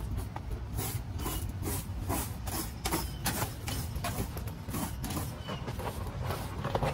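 Plastic leaf rake scratching and scraping through a pile of cut vines and grass clippings, in quick repeated strokes about two or three a second.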